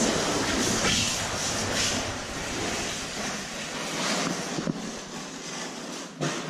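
Steady rushing noise with a deep rumble, like wind or handling noise on the camera's microphone. It sets in suddenly and eases off after about four seconds.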